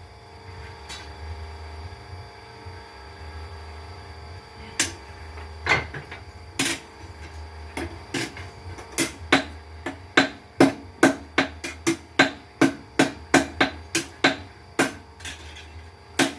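Blacksmith's power hammer striking hot steel over the steady hum of its motor. A few single blows come first, then a steady run of about three blows a second from about nine seconds in, as the piece is forged.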